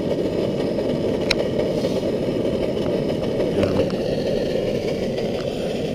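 MSR Dragonfly liquid-fuel camping stove burning with a steady low roar, with a single sharp tick about a second in.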